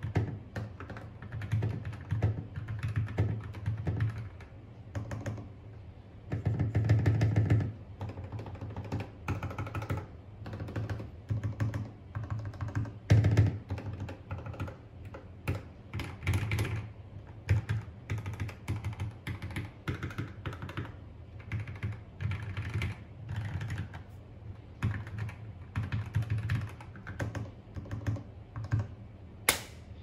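Modded mechanical keyboard being typed on: continuous runs of key presses, with a dense fast flurry about seven seconds in. The keystrokes have a not-so-thocky sound.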